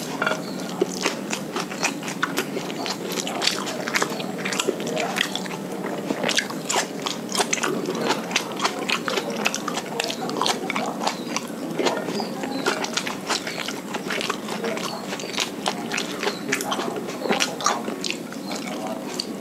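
Close-miked eating of fried rice by hand: chewing and wet mouth sounds, with many sharp irregular clicks of lips and teeth, several a second.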